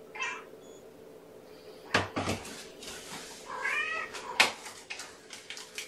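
A cat meowing once, a short call that rises and falls, about three and a half seconds in. Several sharp knocks and clunks sound around it, the loudest just after the meow.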